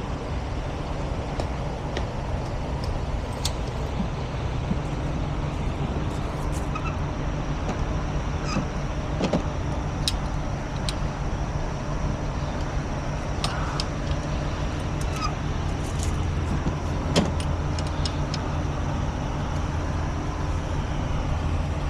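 Heavy diesel truck engine running steadily, with scattered sharp clicks and knocks over it, one louder about seventeen seconds in.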